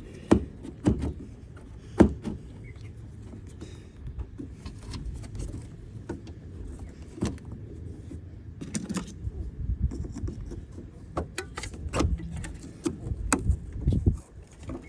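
Scattered clicks, knocks and rubbing of hands and tools working a stuck rubber coolant hose loose from its fitting, with a sharp knock about two seconds in.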